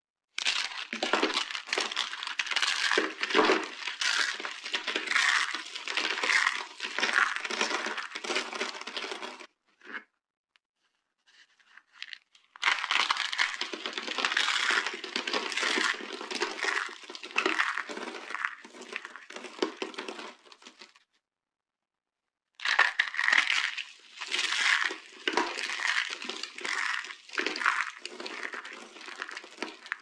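Hands crushing and crumbling brittle dry soap pieces: dense crunching and crackling made of many sharp little snaps, in three long bouts with short near-silent pauses between them.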